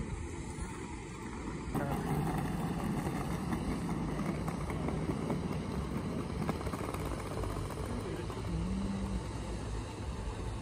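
Steady outdoor city ambience: a wash of distant traffic noise with faint voices. It starts with a short stretch of quieter car-interior noise and gets suddenly louder about two seconds in.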